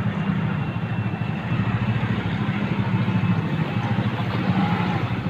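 Engine and road noise of a motor vehicle being driven over a rough, unfinished road, running steadily.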